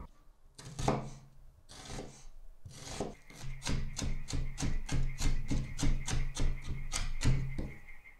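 A chef's knife chopping onion on a wooden cutting board: a few separate cuts at first, then a rapid even run of strokes at about four a second that stops shortly before the end.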